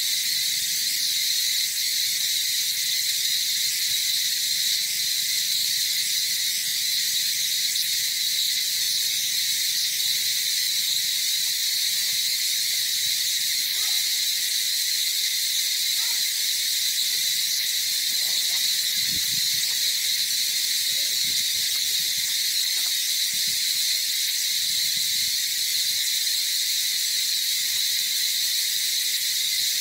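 Steady, high-pitched insect chorus of cicadas or crickets buzzing without a break. Faint scattered low rustles come and go in the middle.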